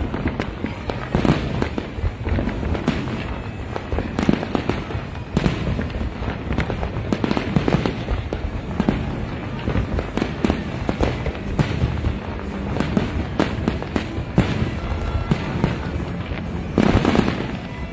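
Aerial fireworks display: a dense, continuous barrage of shell bursts, many overlapping bangs every second.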